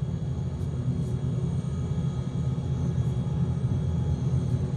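Steady low rumble with a faint steady hum above it, and a few faint ticks scattered through.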